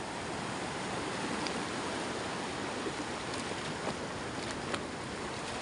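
Steady rushing noise of sea surf and wind, with a few faint ticks.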